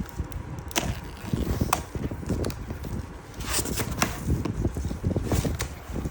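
Cardboard packaging of a robot vacuum being handled and opened: irregular knocks and bumps, a few sharp clicks, and short scraping rustles.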